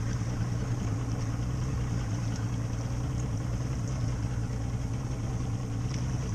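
Outboard motor idling steadily with a low, even hum.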